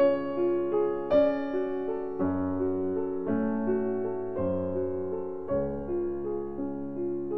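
Background music: a gentle keyboard piece, piano-like, with a new chord struck about once a second.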